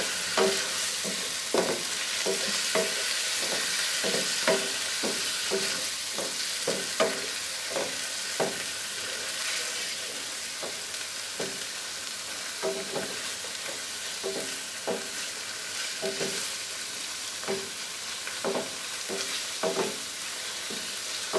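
A wooden spatula stirring curry paste and pineapple in a metal frying pan, knocking and scraping against the pan one or two times a second, each knock ringing briefly, over a steady sizzle of the paste frying.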